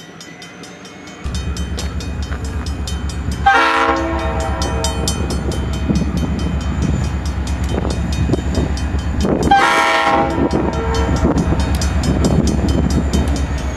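EMD SD40-2 and SD40-3 diesel locomotives, 16-cylinder two-stroke 645 engines, working under load as they throttle up to climb out of the yard: a deep throbbing engine rumble that sets in about a second in, with a high whine above it. Two short horn blasts sound about six seconds apart.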